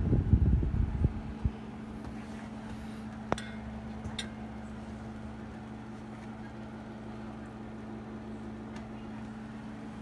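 Embraco hermetic refrigerator compressor running with a steady hum. A low rumble fills the first second, and two sharp clicks come about three and four seconds in.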